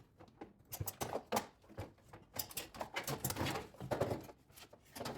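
Irregular knocks and scrapes as a Daewoo front-load washing machine's tub-and-drum assembly is worked loose and pulled out of its cabinet.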